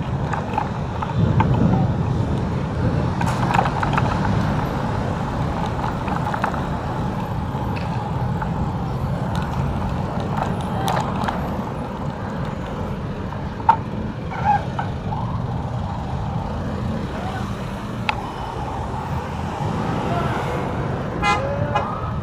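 Busy road traffic: a steady rumble of passing motor vehicles, with a few short horn toots and other brief sharp sounds.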